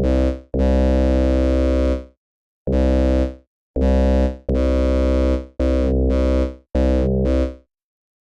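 Deep synthesizer bass patch in Arturia Pigments, a sine bass layered with virtual-analog waveforms and phase modulation, played as about eight notes of different lengths, each fading out quickly when released. The patch has its pulsating effect switched off. The notes stop about half a second before the end.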